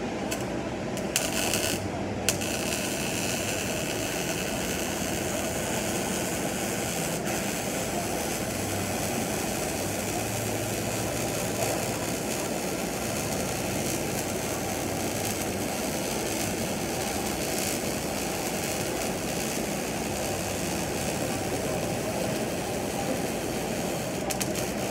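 Electric arc welding. The arc starts and stops in a few short sputters in the first couple of seconds, then burns with a steady crackling hiss.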